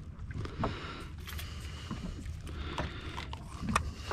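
Steady low rumble of wind and water around a small fishing boat, with scattered light clicks and knocks.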